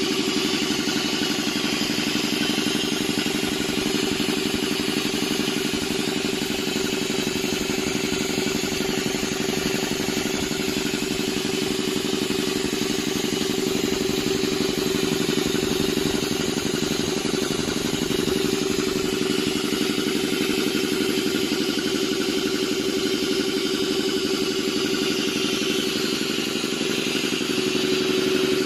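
Air compressor running steadily on a test run: a constant mechanical drone with a strong low hum, unchanging throughout.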